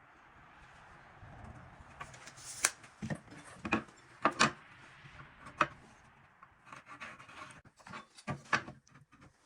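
Wooden boards being handled: a series of separate knocks and clatters a second or so apart, with some rubbing between them.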